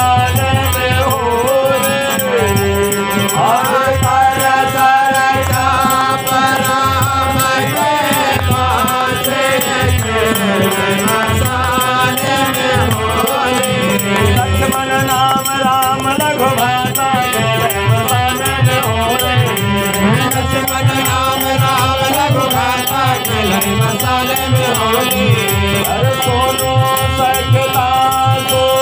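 Bagheli phag, a Holi folk song: a voice singing over sustained harmonium-like chords, with steady drum strokes and shaken rattling percussion.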